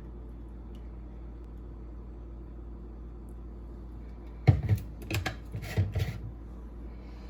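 A quick run of knocks and clatter, about four and a half seconds in, over a steady low hum.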